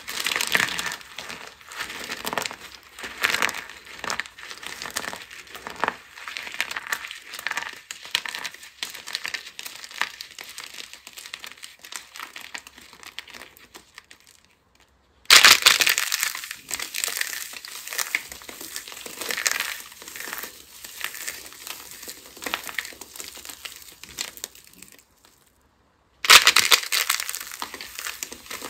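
Dry soap crushed and crumbled by hand: a hollow soap box packed with starch crunching and crackling, then soap flower petals mixed with glitter crushed into pieces. The crunching breaks off twice, at about 14 s and 26 s, and restarts abruptly and loud each time.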